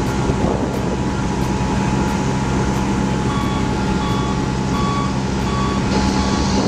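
Wheel loader's diesel engine running steadily at a stockpile. From about halfway in, its reversing alarm sounds a steady string of short beeps, about three every two seconds, as it backs up.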